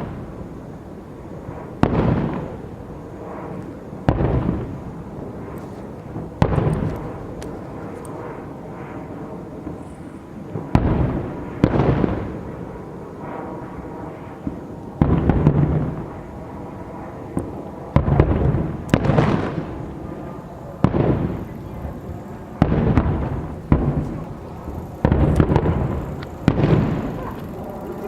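Aerial fireworks shells bursting one after another, about fifteen sharp booms each trailing off in a rumble, coming closer together in the second half.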